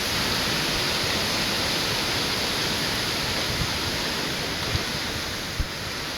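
Steady hiss of heavy storm rain and wind, easing slightly near the end.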